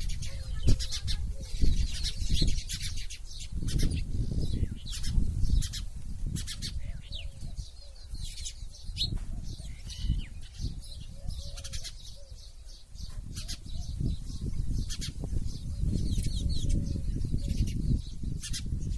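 Sparrows chirping: rapid, repeated short high chirps throughout, over a low rumbling background.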